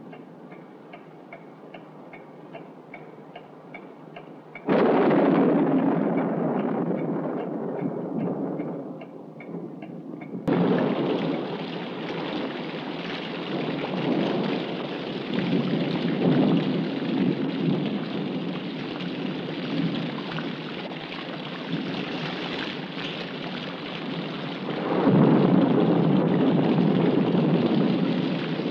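Soft, regular ticking, broken about five seconds in by a sudden crash of thunder that rumbles away. From about ten seconds in, a heavy rainstorm pours steadily with rolling thunder, swelling loud again near the end.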